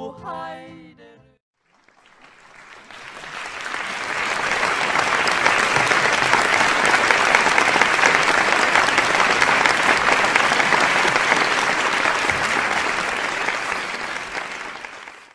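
Audience applause, a dense steady clapping. It fades in after a short silence, holds steady, and fades out near the end.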